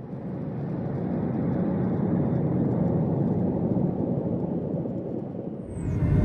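Steady engine and airflow noise inside the cabin of a Boeing 737-800 in flight, from its CFM56-7B turbofans. It fades in over the first couple of seconds, and near the end it switches to a louder, deeper rumble.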